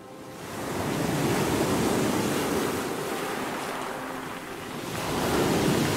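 Ocean surf: waves rolling in and breaking, a steady rush of water that swells about a second in, eases off and swells again near the end.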